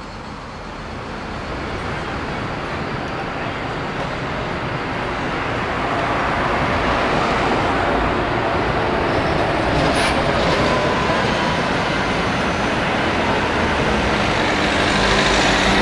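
City street traffic noise that grows steadily louder, including a city bus passing, with one short, sharp, high hiss about ten seconds in.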